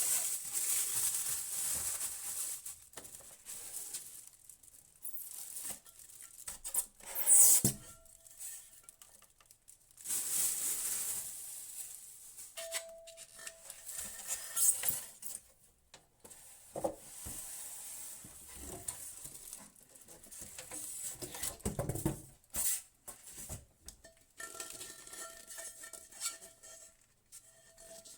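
Rustling packaging and irregular knocks and clatters as a slow cooker's parts, such as its lid and crock, are handled.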